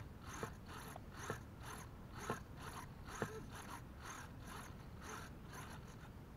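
Small RC hobby servos whirring in short repeated strokes as their arms swing back and forth, about twice a second, with a sharper tick about once a second through the first half.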